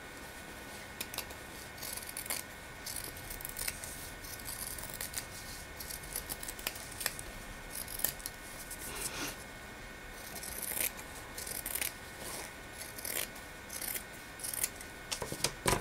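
Scissors snipping through fabric in many short, irregular cuts, trimming a narrow strip off the edge.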